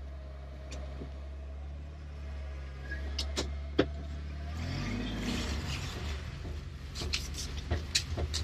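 Car engine running, heard from inside the cabin: a steady low hum with a few sharp clicks and knocks. About four and a half seconds in, the hum turns rougher and noisier, with more rattles and clicks.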